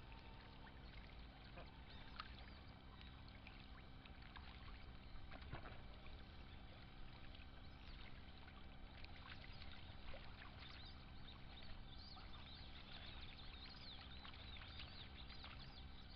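Faint water sounds of ducks swimming and dipping their heads: small splashes and trickles. High, quick bird chirps come in from about ten seconds in.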